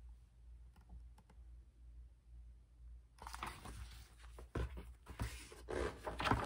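Paper pages of a picture book being handled and turned: a few faint clicks at first, then from about three seconds in a louder run of rustling with sharp clicks and taps.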